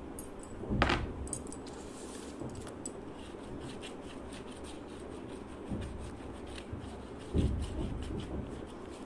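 Handling noise of a homemade tray and paintbrush on a wooden tabletop: a thump about a second in, two softer knocks later, and faint rubbing and light clicks in between.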